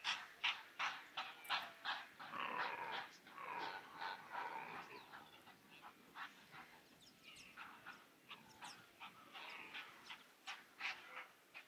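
Animal calls: a quick run of short, sharp calls, about three a second, then longer wavering cries in the middle, then scattered short calls again.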